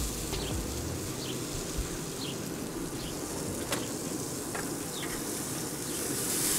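Chicken sizzling on the grate of a Traeger pellet grill, a steady hiss with a couple of light clicks.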